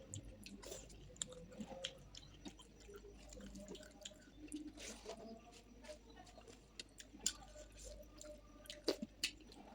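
A person chewing food with wet mouth sounds and many small, irregular clicks and smacks.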